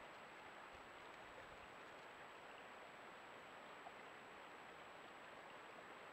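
Near silence: a trail camera's microphone picks up only a steady faint hiss with a thin, high, unchanging tone, and one tiny click about four seconds in.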